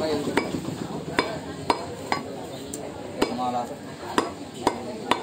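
Butcher's cleaver chopping beef on a wooden log chopping block: about eight sharp, irregular chops, roughly one every half second to a second.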